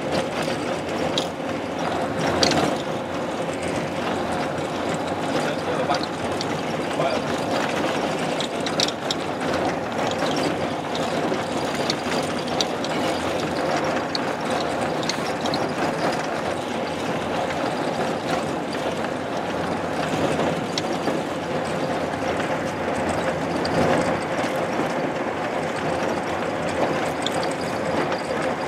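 Steady vehicle running noise: a constant engine hum under an even rumble, with scattered small rattles and clicks.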